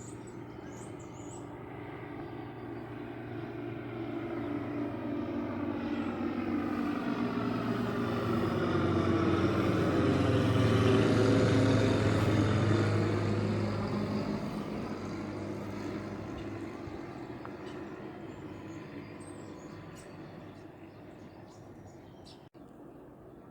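Light propeller aircraft flying low overhead: its engine drone swells to a peak about halfway through and then fades away, the pitch dropping slightly as it passes.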